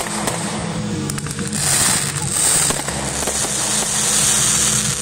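Aerial firework shells bursting, with a dense hissing crackle that swells about a second and a half in and again past the middle, over steady music.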